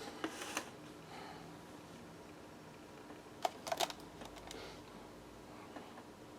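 Small parts being handled: a few light, sharp clicks and taps just after the start and a tighter cluster about three and a half seconds in, over a faint steady hum.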